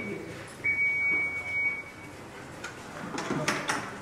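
An electronic beep at one steady high pitch, sounding briefly at the start and then again for about a second. A few clicks and rubbing follow near the end.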